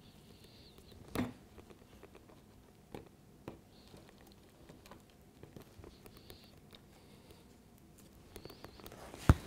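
Light taps and clicks of fingers handling and pressing model railway track down onto a foam trackbed. A louder knock comes about a second in and a sharp knock at the very end.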